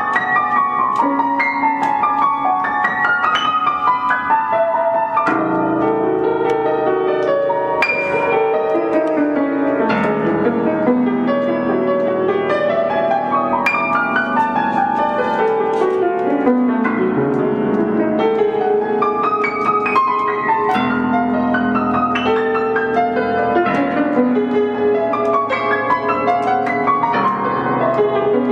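Upright piano played fast in a free improvisation: dense, quick runs of notes moving up and down the keyboard over held lower chords.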